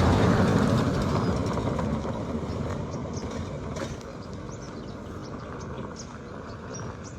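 A motor vehicle passing close by: its road and engine noise is loudest at the start and fades steadily as it moves away.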